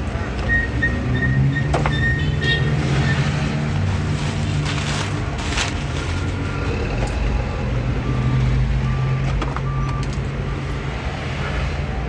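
A truck's engine running with a reversing alarm beeping at an even pace: one run of short beeps in the first few seconds, then a lower-pitched run from about halfway on. A few sharp clicks and a brief rustle come in around the middle.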